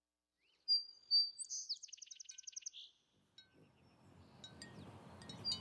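A song sparrow singing one song: two clear high introductory notes, then a fast trill of about ten notes and a short buzzy ending. From about halfway, a faint hiss of background noise with a few scattered chirps rises.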